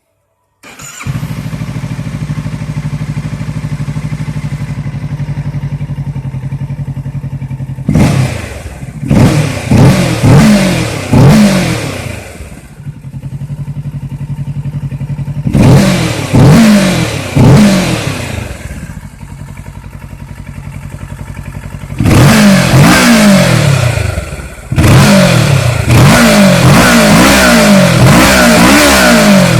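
Kawasaki Ninja 650's parallel-twin engine through its stock exhaust. It starts about half a second in and idles steadily. Then it is blipped up and down in quick rev bursts: a group of about four, then three, then longer stretches of repeated revving near the end.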